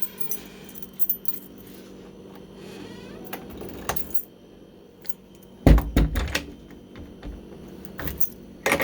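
Keys jangling and metal clicks as a garage door is handled. There are thin squeaky glides near the start and again about three seconds in, and a heavy knock about six seconds in.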